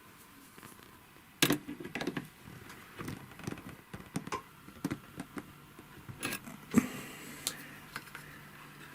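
Irregular metallic clicks and knocks of hand tools and the sewing machine's hook mechanism being handled and adjusted by hand, the two loudest knocks about one and a half and almost seven seconds in. A faint low steady hum comes in about five seconds in.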